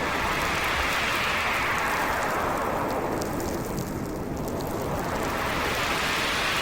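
Howling wind of a heavy winter snowstorm, blowing in slow gusts: a gust swells early, dies down around the middle, and builds again near the end.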